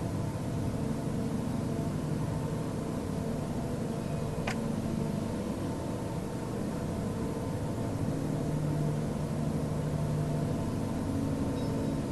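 Steady low drone made of several held tones over a hiss, like a distant airplane but unbroken. A single sharp click about four and a half seconds in.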